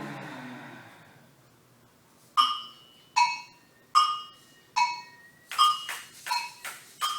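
Evenly spaced sharp percussive strikes, each with a short ringing tone. They start a couple of seconds in at about one strike every 0.8 s and come faster near the end, after a breathy sound that fades out in the first second.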